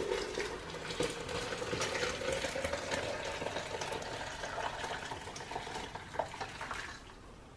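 Freshly brewed hibiscus tea poured from a pot through a mesh strainer into a plastic pitcher: a steady splashing pour that tapers off near the end.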